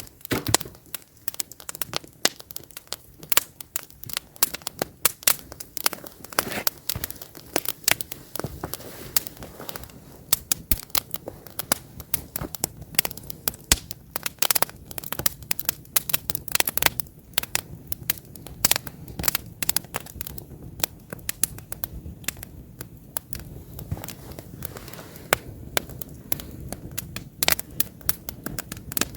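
Wood campfire burning with many irregular sharp crackles and pops over a low steady hiss of flames.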